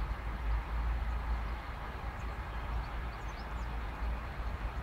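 Wind rumbling on the microphone over a steady outdoor background hiss, with a few faint bird chirps in the middle.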